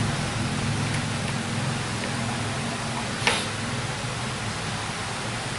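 Steady hiss of background noise with a single sharp click a little over halfway through.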